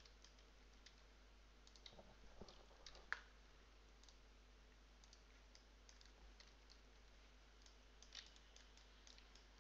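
Near silence with scattered faint clicks from a computer mouse and keyboard, the sharpest about three seconds in.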